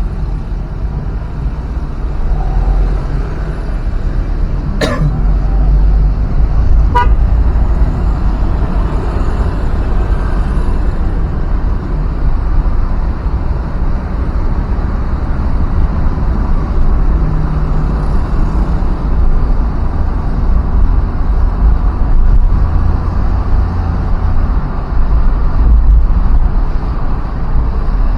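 Road traffic heard on the move: a steady, uneven low rumble of vehicle and road noise, with a vehicle horn tooting briefly about seven seconds in.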